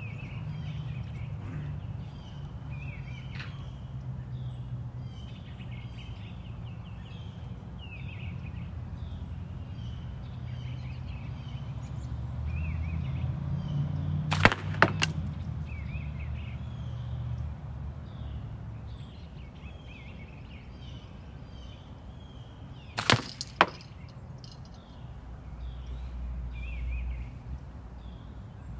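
Two slingshot shots of steel balls from 1636 tubes, about eight seconds apart. Each is a pair of sharp cracks less than a second apart: the shot let go and the ball striking the catch box. Birds chirp faintly throughout.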